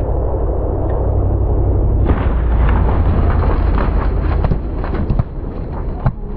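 Loud rushing roar of cars speeding past at about 120 km/h, with heavy wind buffeting on the microphone; the roar grows brighter about two seconds in. A few sharp knocks come near the end.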